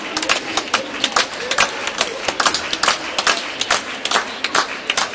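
People clapping fast and evenly, about five claps a second, cheering on a dog running an agility course.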